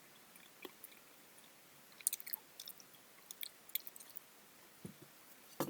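Close-up chewing of fruit: a run of small wet clicks and smacks from the mouth, with a couple of louder knocks near the end.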